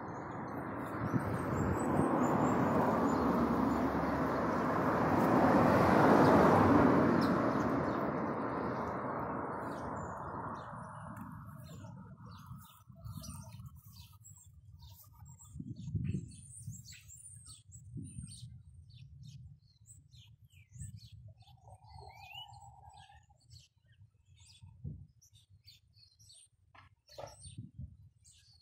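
Small birds chirping repeatedly. For the first ten seconds or so, a broad rushing noise swells up and then fades away, and it is the loudest thing heard.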